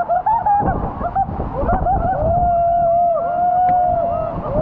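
Men laughing and then letting out a long, held whooping yell, over the steady rush of a waterfall pounding into the pool.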